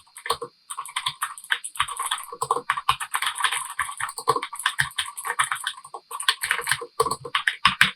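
Typing a sentence on a TeckNet mechanical gaming keyboard with blue clicky switches: a quick, uneven run of sharp key clicks, with two brief pauses, one just after the start and one about six seconds in.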